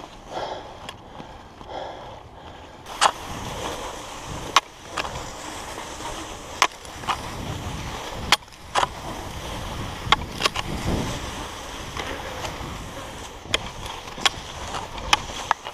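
Cross-country skis sliding and scraping over snow, with sharp clicks of the ski poles planting every second or two.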